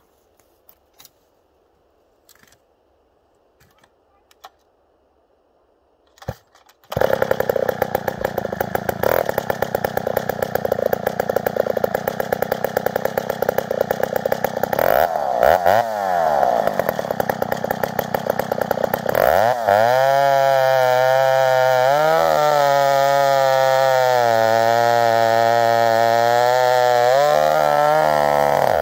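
McCulloch Super 55, a vintage single-cylinder two-stroke chainsaw bored to 83 cc, starts up about seven seconds in after a few faint clicks and runs with rapid, uneven firing, revving up and back down once. From about twenty seconds it is held at high revs, its pitch dipping and recovering again and again as it works under load.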